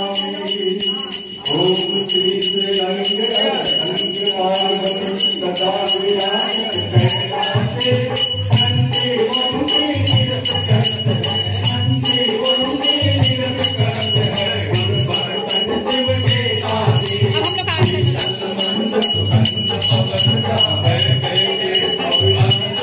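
Aarti bell rung continuously with rapid jingling, over devotional aarti singing; a regular low drum-like beat joins about seven seconds in.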